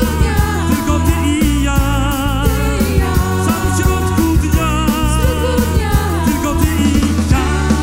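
Live pop-rock band playing, with drums, bass and keyboards under a female vocal trio singing long held notes with vibrato.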